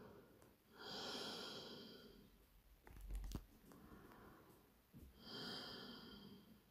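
Faint breathing, two long breaths a few seconds apart, each fading out. A soft low thump with a few light clicks comes between them.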